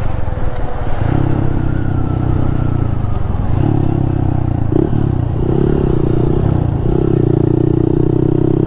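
Honda Monkey 125's single-cylinder four-stroke engine running under way. The engine note drops and picks up again several times as the throttle is eased and opened.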